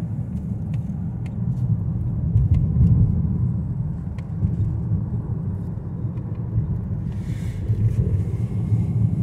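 A car driving, heard from inside the cabin: a steady low rumble of road and engine noise, with a few faint ticks.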